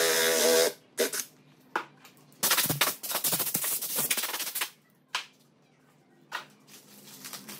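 Cordless drill boring a 35 mm hinge cup hole into the wooden door frame, its motor whining as it cuts; it stops within the first second. Then come a few sharp knocks and about two seconds of clattering and rubbing as the wooden door is handled and moved, and more single knocks.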